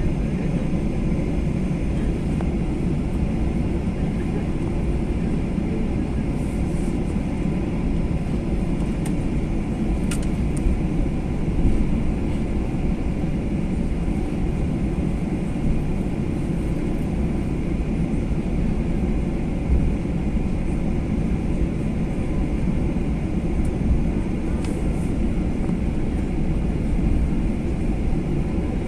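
Steady low rumble inside the cabin of a Boeing 737-800 taxiing, its CFM56 jet engines at low power.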